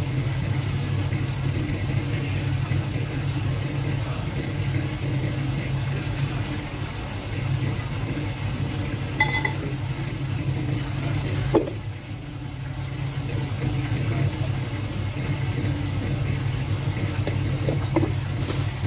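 Steady low hum of a running machine such as a kitchen fan or appliance. A few light knocks of handling come about halfway through, and a short hiss near the end.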